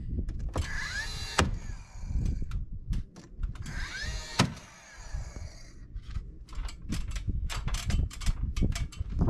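Cordless nailer driving nails into siding panels twice: each time the tool's motor whirs up with a rising pitch, then fires with a single sharp crack, about a second in and again around four and a half seconds in.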